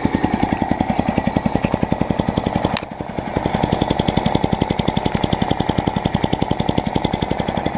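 Small petrol lawnmower engine running on low revs, a steady rapid pulse of about ten firings a second; about three seconds in the level dips briefly before it settles back.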